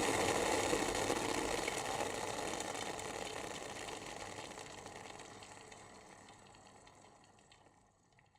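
Electric kettle's boil dying away: the rushing, bubbling noise fades steadily to near silence, with a few faint ticks near the end as it settles.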